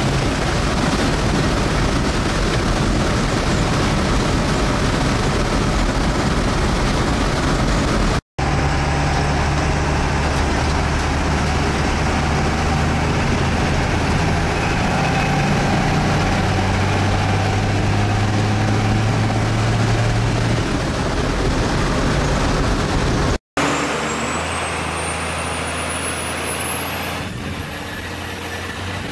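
A Cummins 12-valve diesel pickup running at road speed, heard from inside the cab as a steady engine drone over road and wind noise; partway through, the engine note steps up in pitch. After a cut near the end the engine sound becomes quieter, with a thin whistle rising steadily in pitch.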